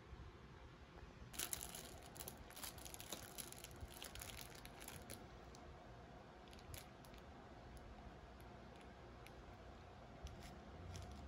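Clear plastic wrapper of a packaged brownie crinkling as it is handled and peeled open. A dense run of crackles starts about a second in, then thins out to scattered single crackles.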